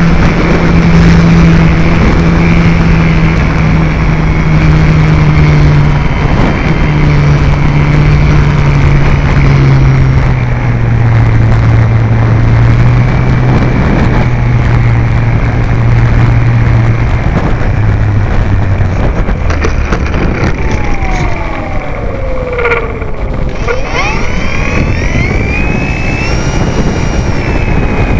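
Wind rushing over the microphone of a camera riding on a Multiplex FunCub electric RC plane, over the hum of its motor and propeller, which falls steadily in pitch as the throttle is eased back for landing and fades out about two-thirds of the way in. Near the end, short whines glide down and then up, with a brief knock among them.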